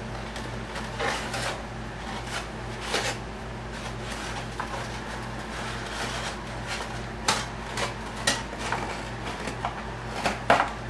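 Scattered small clicks and rustles of hands working on a foam RC airplane, routing servo wires, over a steady low hum. The sharpest click comes near the end.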